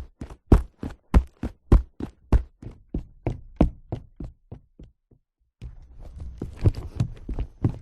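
Footsteps in leather sneakers, walking at a steady pace with sharp, even steps that fade away about four and a half seconds in. After a short silence, a new run of steps starts over a faint background hiss.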